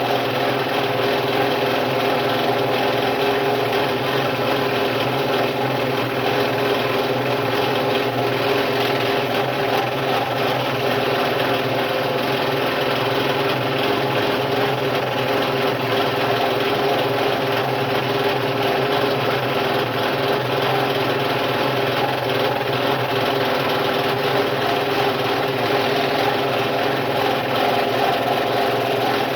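Scroll saw running steadily with a new blade, its up-and-down blade cutting through wood: an even motor hum with a hiss of sawing over it, unbroken throughout.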